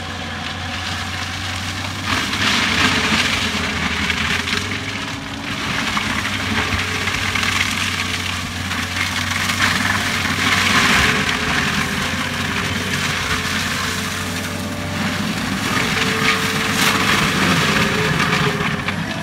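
Forestry mulcher running under load, its engine holding a steady low hum while the mulching head shreds a standing bush. The shredding comes in three louder surges, about two, nine and sixteen seconds in.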